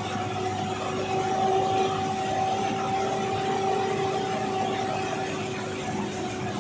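Bus engine and road noise heard from inside the driver's cab while driving, with a steady whine running through it.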